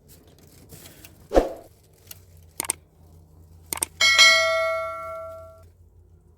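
A few knocks and clicks, then a metal object struck once, ringing out and dying away over about a second and a half.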